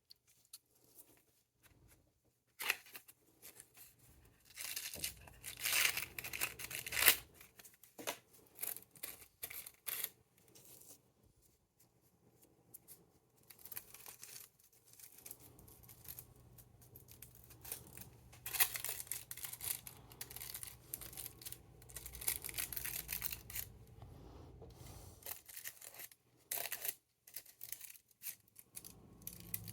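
Rolling paper crinkling and tearing in irregular crackly bursts as a joint is rolled by hand.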